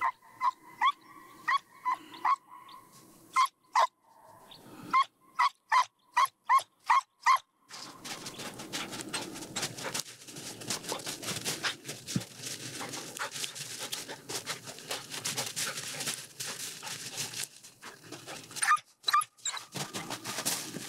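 A Drever hound baying in a fast run of short, loud barks, about two or three a second, following the hare's track. The barking then gives way to crunching and rustling through snow, with a few more barks near the end.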